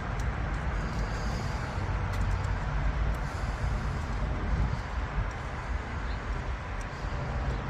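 Steady low rumble under a hiss of background noise, with a few faint clicks about two and three seconds in.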